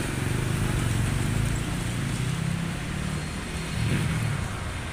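Street traffic noise: vehicle engines running and passing in a steady, dense wash of low rumble.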